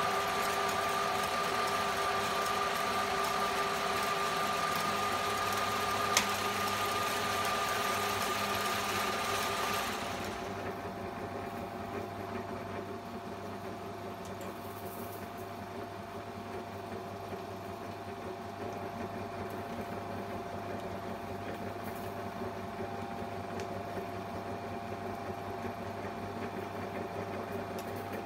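Old Hahn & Kolb metal lathe running with a steady mechanical whine over a hiss, with a single sharp click about six seconds in. About ten seconds in, the hiss and the higher whine drop away, leaving a quieter steady hum.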